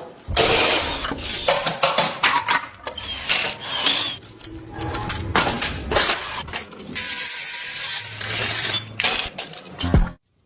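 Workshop tool sounds in quick succession: scraping, rubbing and power-tool grinding, cut abruptly from one to the next every second or so. Near the end comes a steadier hissing stretch over a low hum.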